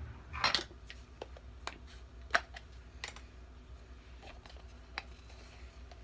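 Scattered light clicks and taps, about eight of them, the loudest about half a second in and a little after two seconds: a measuring spoon and cinnamon container being handled while a teaspoon of cinnamon is measured out.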